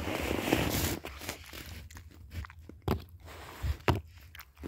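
Bear cub eating, with crunching and chewing through the first second, then a few sharp knocks later on.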